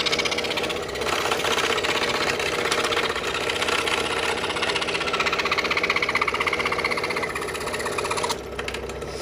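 Scroll saw running, its fine blade cutting through a thin wooden jigsaw-puzzle blank with a fast, even run of blade strokes. The cutting sound drops away about eight seconds in, leaving the saw's lower hum.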